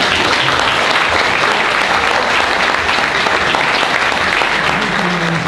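Audience applauding, a dense, steady clapping throughout; a voice starts over it near the end.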